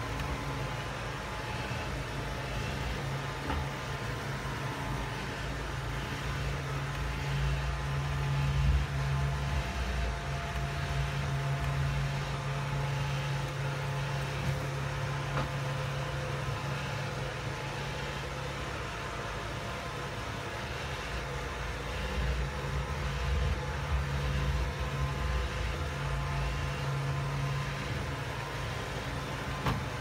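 iRobot Roomba 620 robot vacuum running with a steady motor and brush hum, and a few brief ticks.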